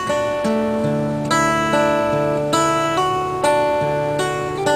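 Intro music of plucked-string chords, guitar-like, with a new chord struck about every half second and fading before the next.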